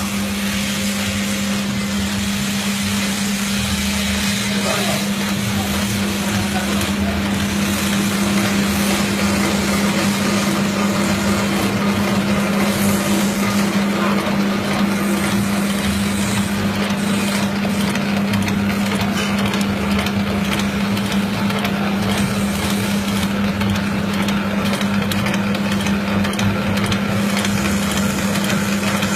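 Meatball-forming machine running steadily, its electric motor giving a constant hum under a whirring mechanical noise.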